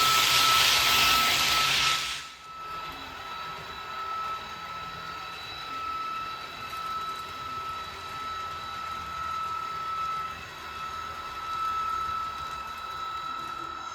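Märklin ICE 4 model train running, with a loud hiss for about the first two seconds that cuts off suddenly, followed by a steady high whine.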